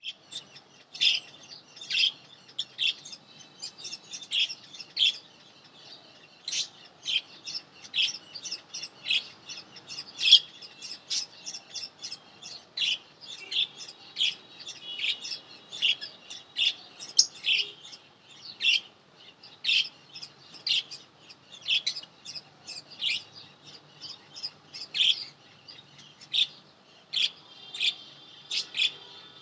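Lovebirds chirping: a continuous run of short, shrill chirps, one or two a second.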